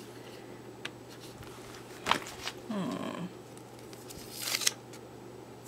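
Quiet handling sounds at a desk: a sharp click about two seconds in, a short hummed murmur just after it, and a brief rustle near the end.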